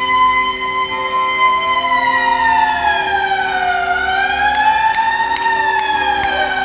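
A wailing siren. Its pitch holds, then slowly falls, rises and falls again, over a steady lower hum.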